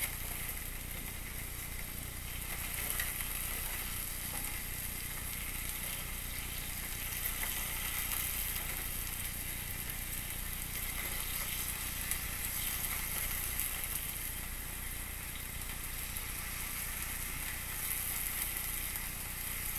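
Beef steaks sizzling steadily in a ridged cast iron grill pan, with chopped green peppers and onions cooking on top.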